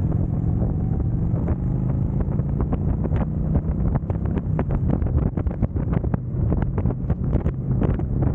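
Kawasaki Vulcan 900 V-twin motorcycle engine pulling under acceleration, heavily buffeted by wind blasting the camera's microphone.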